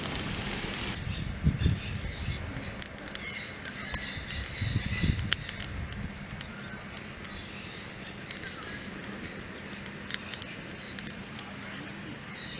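Birds chirping and calling, with scattered sharp clicks and a few low thumps. A steady hiss stops abruptly about a second in.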